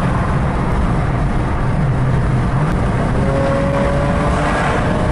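BMW 335i's turbocharged straight-six heard from inside the cabin, pulling under hard acceleration at road speed over steady road and wind noise. From about three seconds in, a tone climbs slightly in pitch.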